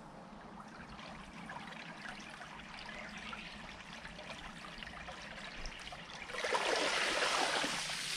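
Water trickling and running in a concrete irrigation ditch, with small ticks and patters. It gets louder for the last two seconds or so.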